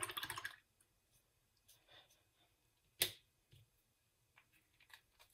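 Small clicks and taps of a small ink bottle and its screw cap being handled on a tabletop, with one sharper click about three seconds in. A short rustle of handling at the very start.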